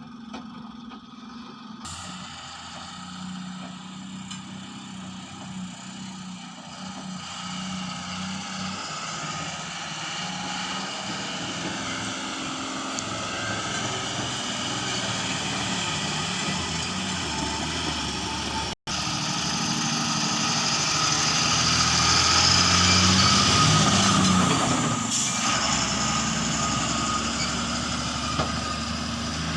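Heavy diesel engine running, growing gradually louder, with a brief break about two-thirds of the way through and the loudest stretch soon after.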